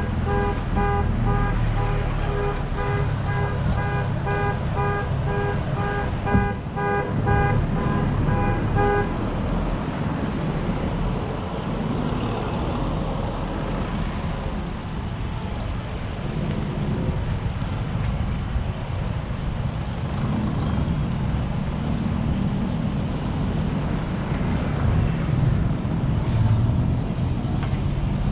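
Vehicle driving along a town street: steady engine and road rumble with surrounding traffic. For the first nine seconds a rapid electronic beeping repeats several times a second, then stops. There is a single knock about six seconds in.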